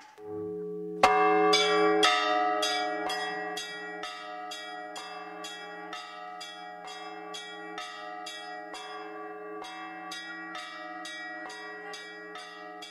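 Church bells ringing in a quick, even peal, about three strokes a second with the tones ringing on between strokes. The peal is loudest for its first couple of seconds and then holds at a steady, lower level.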